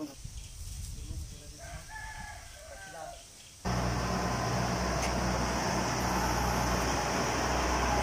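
A rooster crows once in the first half. About halfway through, the steady running of a Kubota combine harvester's diesel engine cuts in suddenly and becomes the loudest sound.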